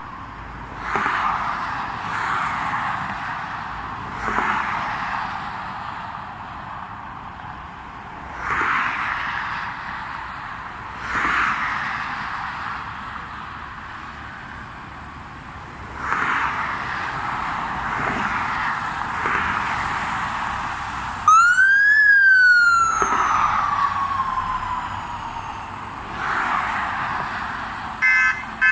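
A siren sounds once: a quick rise in pitch, then a long, slow fall. Around it, passing road traffic rushes in and fades again and again. A horn gives a few short toots near the end.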